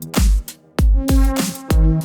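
Electronic dance music with heavy kicks that drop in pitch, about one every half second or so, over sustained synth notes; the music cuts out briefly about half a second in.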